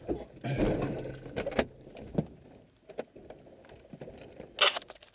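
Clicks, knocks and rattles of a glider's cockpit canopy being unlatched and swung open after landing, with a louder rustling clatter about half a second in and a sharp scraping rush near the end.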